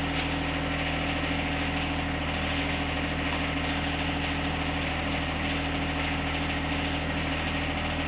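A John Deere compact tractor's diesel engine running steadily at a constant speed, powering the backhoe hydraulics while the newly installed hydraulic thumb is cycled to check for leaks.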